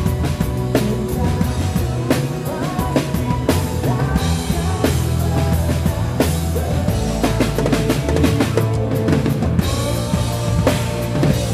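Acoustic drum kit played hard, with bass drum, snare and cymbal hits in a steady pop-rock groove, over the song's accompanying music.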